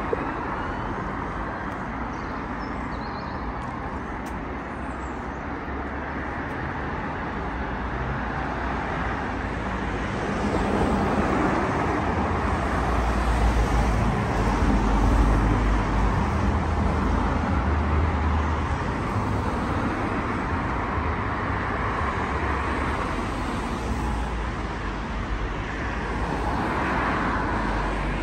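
Road traffic on a busy city street: cars, a taxi and a van driving past, with a steady tyre and engine rumble that swells louder for several seconds in the middle and again near the end as vehicles pass close.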